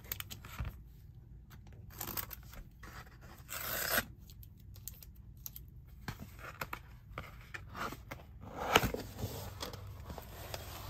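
Packaging being handled and torn open by hand: rustling and scraping with short clicks, a rip that swells and cuts off sharply about four seconds in, and a louder tearing burst near the end.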